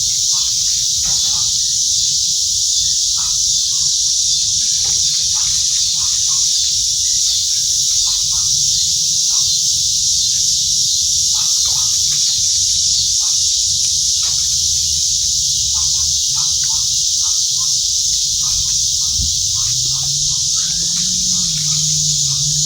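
Steady, high-pitched insect chorus of summer cicadas or crickets drones throughout, with short scattered rubbing and scuffing sounds of someone scrubbing while washing. A low hum rises and falls near the end.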